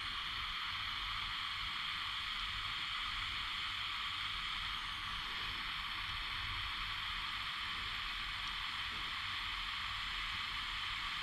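Butane soldering iron hissing steadily as it heats a soldered wire splice.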